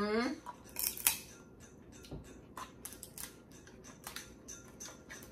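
Cooked crab-leg shells being cracked and snapped apart by hand: irregular sharp cracks and clicks, the loudest about a second in. A short voiced hum at the very start.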